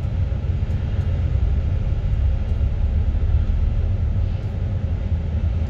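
Tour bus running along a street, its engine and road noise heard from inside the cabin as a steady low rumble.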